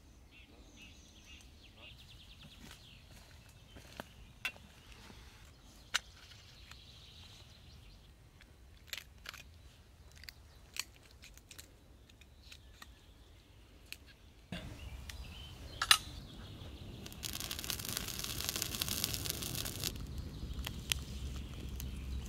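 Faint birdsong, then sharp scattered clicks and scrapes of a knife cutting raw quail on a stone. In the last third a wood fire crackles, with about three seconds of loud hissing.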